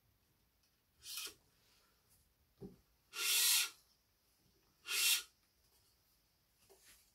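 Badminton string (Yonex BG80) being pulled through a racket frame, making three rubbing zips: a short one about a second in, a longer, louder one a couple of seconds later and another near five seconds in. There is a short low knock just before the longest pull.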